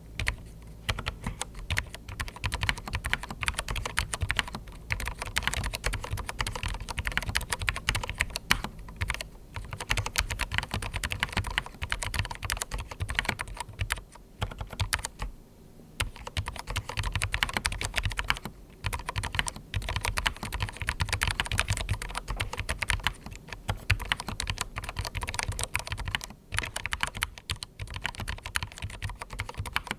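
Continuous fast typing on a darkFlash DFS99 low-profile mechanical keyboard with linear red switches, foam-dampened for quiet keystrokes, with brief pauses now and then.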